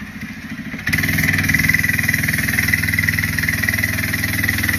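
Small single-cylinder engine of a gas mini bike running as it is ridden, a rapid steady putter that gets suddenly louder about a second in.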